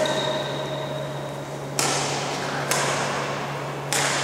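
Badminton rally: rackets striking a shuttlecock, four sharp cracks about one to two seconds apart, each ringing briefly in the hall. A thin high squeak runs between the first and second hits, over a steady low hum.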